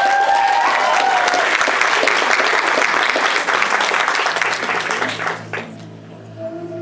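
Audience applauding, with a long high-pitched cheer at the start. The applause dies away near the end as slow music with long held tones begins.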